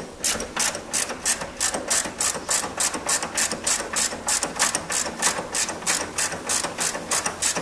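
3/8-inch ratchet with a 14 mm socket on a short extension clicking in quick, even strokes, about four or five clicks a second, as a bracket bolt is backed out.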